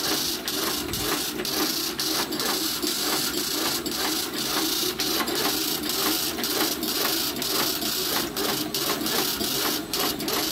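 Fully automatic agarbatti (incense stick) making machine running, its mechanism clacking in a fast, even rhythm over a steady hum as it turns out finished sticks.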